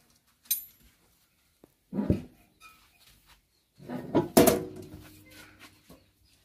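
Metal knocks and clinks as a tractor's crown wheel and differential assembly is worked out of the cast-iron rear axle housing. A light clink comes about half a second in and a dull knock near two seconds. The loudest clank, about four seconds in, rings on briefly.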